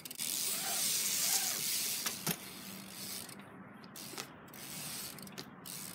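BMX bike rolling on concrete, its tyres hissing and the rear hub's freewheel ratchet ticking as it coasts, with a sharp knock about two seconds in.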